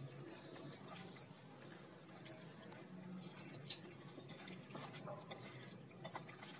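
Faint wet squelching and small clicks of a hand kneading raw chicken pieces in a yogurt and spice marinade in a steel bowl, with one sharper tick about halfway through.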